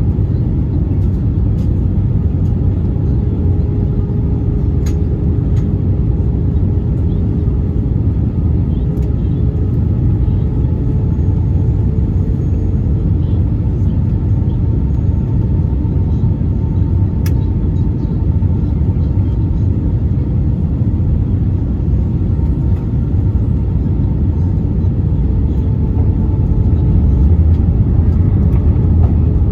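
Airbus A320 cabin noise on the approach: a steady low roar of engines and airflow with a faint steady hum over it. There are a few light clicks, and it grows slightly louder near the end.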